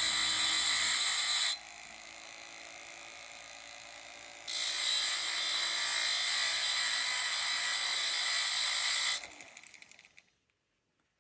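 Diamond cut-off wheel on a Foredom flex-shaft handpiece grinding a tungsten electrode to a point, a loud high hissing whine. About one and a half seconds in it drops to a quieter run for about three seconds, then grinds loud again. Near the end it winds down and stops.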